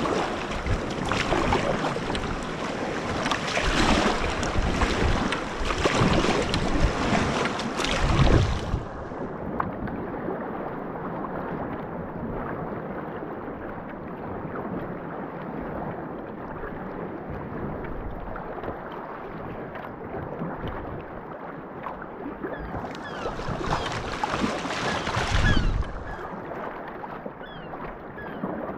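Sea kayak paddling through choppy sea: paddle strokes and water splashing and slapping around the hull, with wind on the microphone. The water sound turns duller for a long stretch in the middle, and there are louder bursts about eight seconds in and again near the end.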